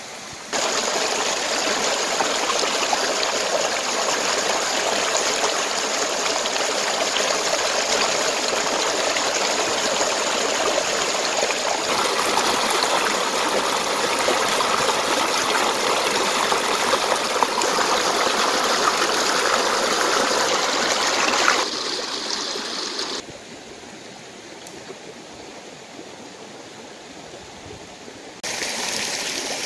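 Stream water rushing and splashing over rocks, a steady loud rush that drops in level about 22 s in, quieter still a second later, and comes back up near the end.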